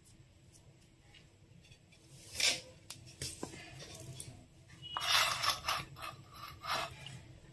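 Handling sounds: a single knock about two and a half seconds in, then a couple of seconds of rustling and scraping as a cloth is smoothed over an idli steaming plate.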